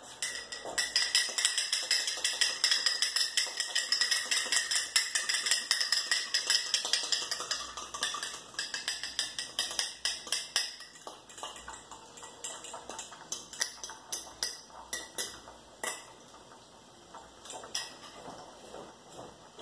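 Eggs being beaten in a clear glass bowl, a metal utensil clinking rapidly and steadily against the glass. About ten seconds in the clinking thins to slower, scattered taps.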